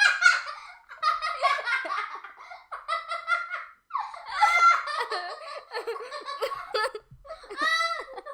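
A person laughing and giggling in a high voice, in several bouts with short breaks between them.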